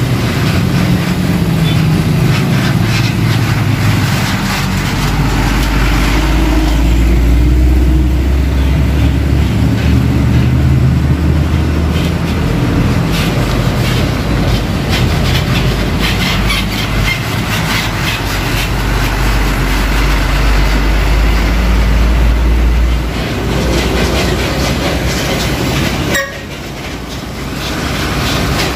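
Heavy diesel dump trucks driving past on a rough road, engines running with a steady low drone. Through the middle, the Hino FG 235 JJ's body and suspension rattle and clatter over the bumps, and its suspension squeaks.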